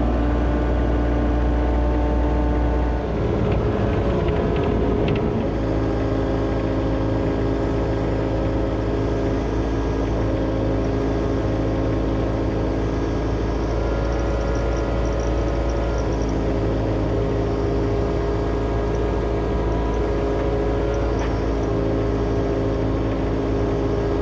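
John Deere excavator's diesel engine running steadily while the machine works its hydraulics. Its engine note shifts about three seconds in, and a few short knocks follow.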